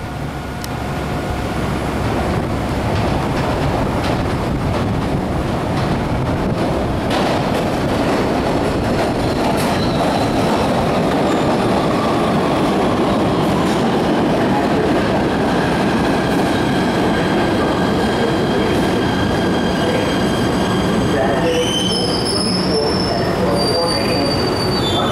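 A PATH PA-5 subway train pulls into an underground station. A loud rumble of wheels on rail builds over the first seconds as it comes out of the tunnel, then holds steady as the cars run along the platform, with a few sharp clicks. Near the end, high squealing and whining tones, some of them sliding in pitch, come in as the train brakes to a stop.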